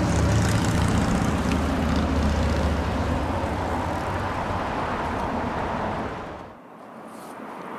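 Steady low rumble of city traffic, dropping away about six and a half seconds in.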